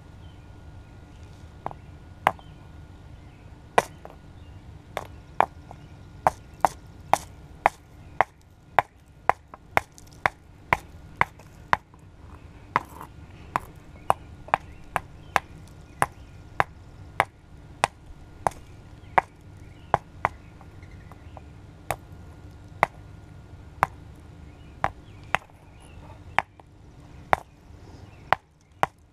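A long series of sharp, irregular taps or clicks, about one or two a second.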